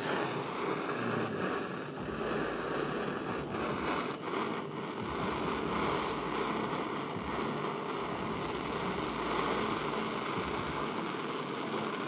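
Jeweller's gas soldering torch flame burning with a steady rushing noise, heating a silver belt buckle so that the borax flux sets and holds the small pieces in place before soldering.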